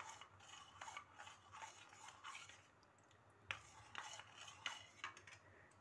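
Metal spoon stirring custard powder into milk in a plastic bowl: faint, irregular scrapes and clicks of the spoon against the bowl, with one sharper tap about three and a half seconds in.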